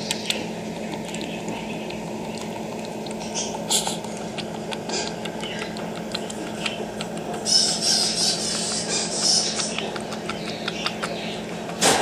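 Lesser anteater (tamandua) lapping paste food from a bowl with its long, fast-flicking tongue: irregular wet clicks and licks, with a louder, hissier stretch of lapping lasting about two seconds past the middle. A steady low hum runs behind it.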